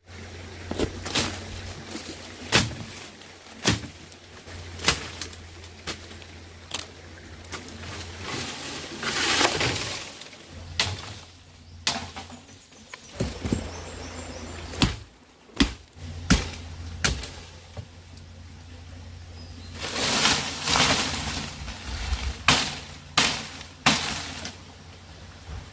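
Irregular sharp knocks and cracks, with two longer stretches of rustling, about nine seconds in and again about twenty seconds in: hand work with wood or bamboo.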